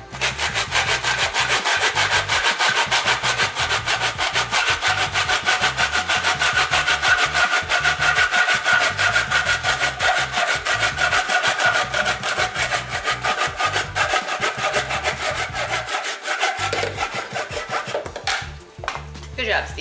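Hand saw cutting through white PVC drain pipe in quick, even back-and-forth strokes, stopping shortly before the end.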